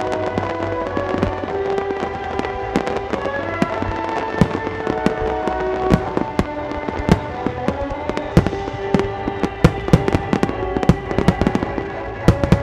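Starmine fireworks barrage: a rapid, irregular string of shell bursts and sharp bangs, coming thicker and louder in the second half, with music playing underneath.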